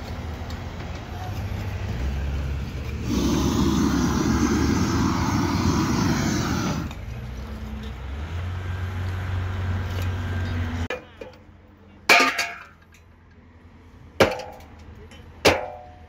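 Steady hum of a gas torch heating bitumen waterproofing membrane, louder and hissier for a few seconds in the middle. It cuts off about eleven seconds in and is followed by three sharp hammer blows on timber formwork.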